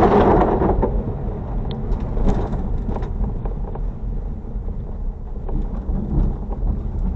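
Car driving over a rough road, heard from inside the cabin: a steady rumble of road noise with small knocks and rattles, loudest in the first second.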